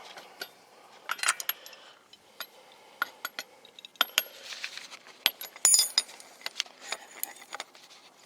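Steel lug nuts clinking and rattling as they are spun off the wheel studs by hand and gathered up, a series of sharp metallic clicks and chinks with a brief ring, the loudest cluster about two thirds of the way through.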